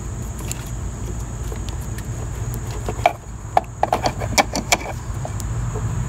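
A cluster of light metallic clicks and clinks about halfway through, from a car battery cable terminal and hand tools being handled, over a steady low hum.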